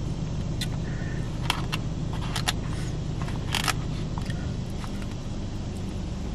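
Steady low hum of a car's running engine heard inside the cabin, with a few short clicks and scrapes from a plastic fork in a foam takeout container.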